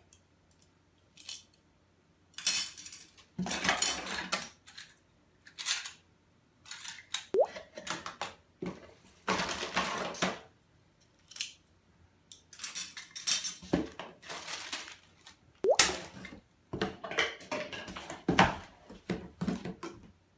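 Aluminium antenna parts and bagged metal hardware being handled and set down on a tabletop, giving light metallic clinks and rattles, with plastic bags and the cardboard box rustling, in irregular bursts separated by short pauses.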